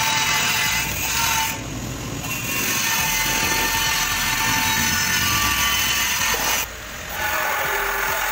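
A power tool running on sheet metal in long passes, with brief pauses about two seconds in and again near seven seconds.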